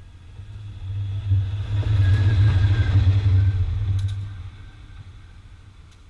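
CC201 diesel-electric locomotive (GE U18C type) running alone past at speed: its diesel engine's deep steady drone and wheel rumble swell, peak as it passes, and fade as it pulls away. A few sharp clicks come about four seconds in.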